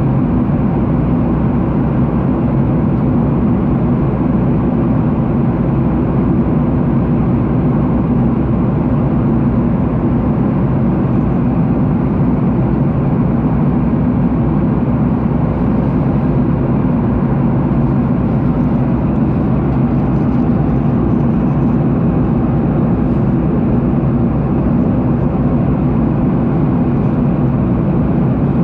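Steady, even jet engine and airflow noise heard inside an airliner cabin, with no changes in pitch or level.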